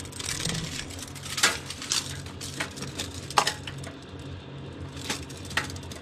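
A scatter of light clicks and clinks, about six in all, as a steel tape measure is handled against the wire basket and liner of a portable fridge compartment, over a low steady hum.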